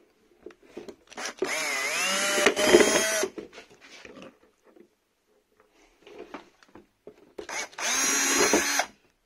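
Electric drill running in two bursts, about two seconds and then a second and a half, as a 3.5 mm bit enlarges holes in a thick plastic RC truck body. Its motor whine dips and then rises in pitch during the first burst.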